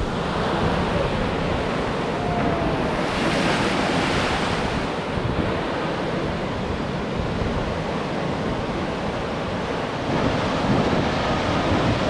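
Heavy storm-swell surf breaking and washing in around pier pilings, with wind buffeting the microphone. A wave crashes louder about three seconds in, and the wash builds again near the end.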